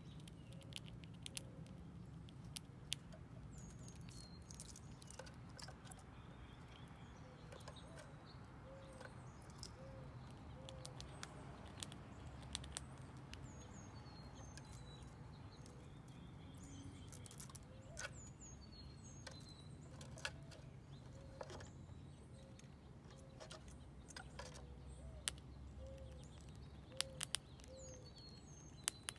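Small birds chirping with short falling notes over a faint low rumble, with scattered sharp clicks that bunch up near the end as a gray squirrel eats dried corn at a wooden feeder.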